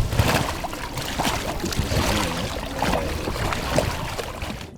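Water splashing and sloshing in shallow flooded marsh as a small boat is hauled by hand through tall grass, in irregular surges.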